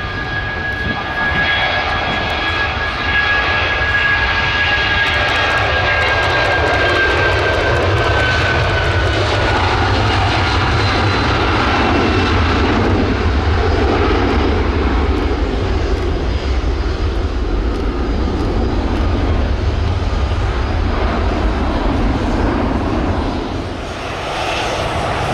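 Boeing 757 jet engines running at high power as the airliner rolls down the runway on takeoff, a loud steady roar with a high whine that drops slightly in pitch about a third of the way in. Near the end the sound dips briefly and gives way to another jet's engines.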